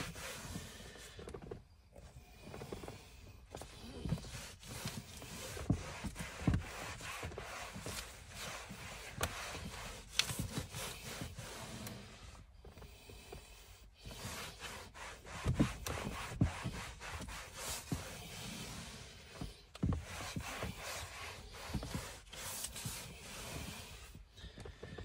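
Bamboo-fibre scrub pad scrubbing a car's plastic interior trim panel wet with all-purpose cleaner, in quick irregular back-and-forth strokes broken by brief pauses. Later a cloth wipes the panel.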